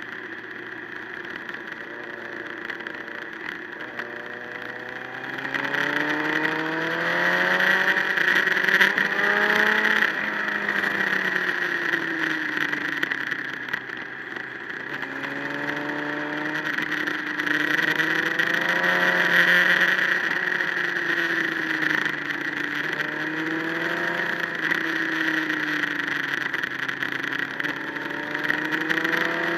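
Motorcycle engine accelerating and easing off through a run of bends, its pitch rising and falling several times, over a steady rush of wind.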